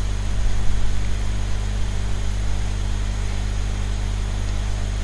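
Steady low electrical hum with an even hiss over it, with no distinct sound events.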